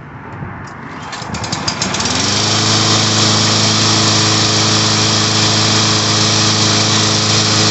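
A new Yard Machines push mower's small engine, primed, catches on the second pull of its recoil starter about two seconds in and then runs steadily. This is its first-ever start.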